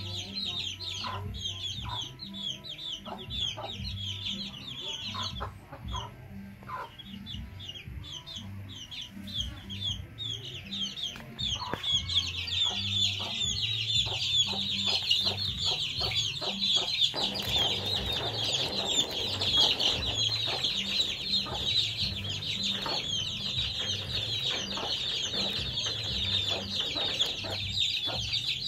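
A flock of young chicks peeping continuously: many short, high, falling cheeps overlapping. The peeping grows louder and denser about twelve seconds in.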